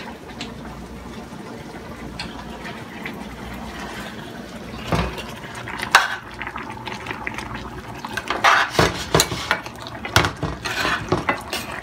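A metal spoon clinking and scraping in a large frying pan as curry sauce is scooped up and poured back over thick grouper steaks, the liquid splashing into the pan. The clinks come in clusters through the second half.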